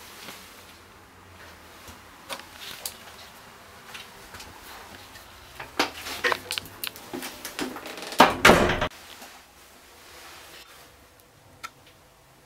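Scattered clicks and knocks, thickening into a quick run of knocks and clatters, then a short louder scraping rush about eight seconds in.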